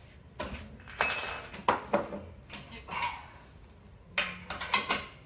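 Metal clinking and clanking as a wrench and the bench's pop-pin hardware are handled. A series of sharp knocks, the loudest about a second in with a short metallic ring, and a quick cluster of clinks near the end.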